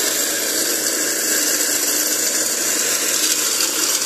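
Walk-behind brush cutter and ground scraper running under load, its Chinese-made 7 HP four-stroke engine driving ten rotary blades that scrape soil and weeds, a steady, dense mechanical noise.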